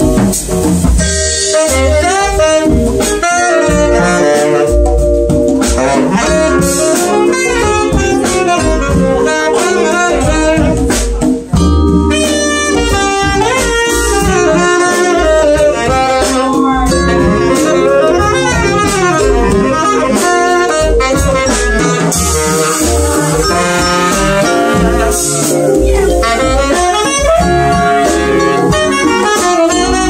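Live jazz combo playing, with a saxophone carrying a winding melodic line over drums, upright bass and vibraphone chords.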